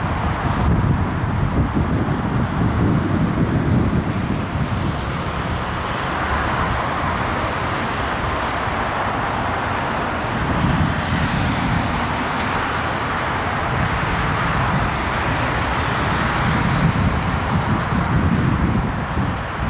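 Road traffic passing: cars and a Volvo heavy-haulage truck towing an oversize load, with engines and tyres on the road. The sound swells and eases as vehicles go by.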